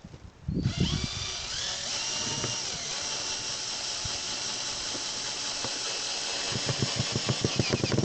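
Power drill driving a self-tapping screw: it starts about half a second in, runs steadily with a drop in pitch as it takes the load, and gives a quick run of knocks in the last second before stopping suddenly.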